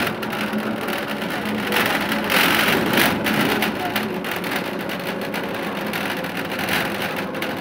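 Inside an Ikarus 280 bus on the move: its diesel engine running under a steady noise of road and body, with frequent small rattles and knocks.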